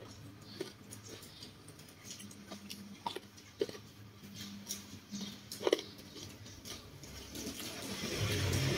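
Close-up eating sounds: chewing with a full mouth, with scattered small clicks and crinkles as fingers pick food off a banana leaf. The sharpest click comes about five and a half seconds in, and the chewing grows louder near the end.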